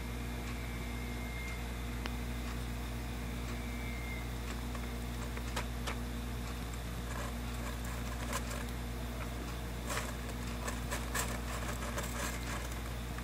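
A crab's claws picking and tearing at an anchovy: small sharp clicks and scratches, sparse at first, coming thick and fast after about seven seconds, over a steady low hum.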